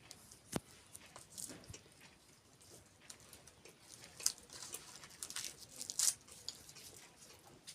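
Close-up eating sounds of someone biting and chewing kheer and puri, with scattered sharp clicks and crackles.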